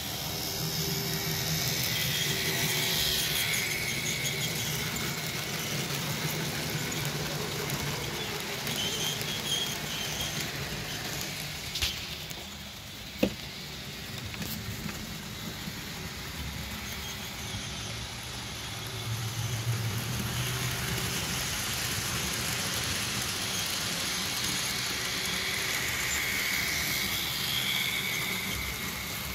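Model diesel locomotives, a Fleischmann V100 and a Roco V90, running laps: a steady whirr of their small electric motors and wheels rolling on the rails. A high squeal comes and goes, and there is a sharp click about thirteen seconds in.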